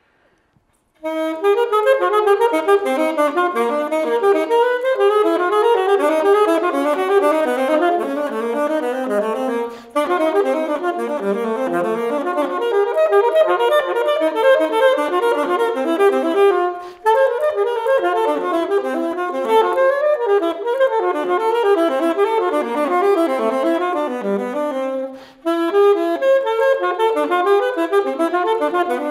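Saxophone playing a fast study of quick running notes, starting about a second in and stopping briefly three times. The short gaps are quick, large breaths taken between phrases, which is the point of the exercise.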